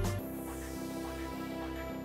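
Background music: the loud beat drops out just after the start, leaving quieter sustained chords with a soft steady pulse.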